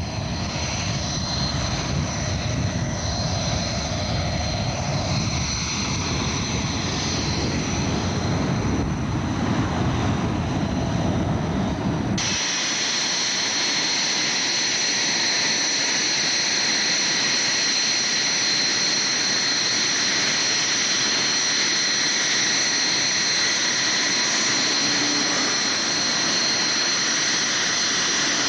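SEPECAT Jaguar jets' twin Rolls-Royce Turbomeca Adour turbofans running on the ground: a heavy low rumble as one taxis, then, after a sudden change about twelve seconds in, a steady high-pitched whine of jet engines idling.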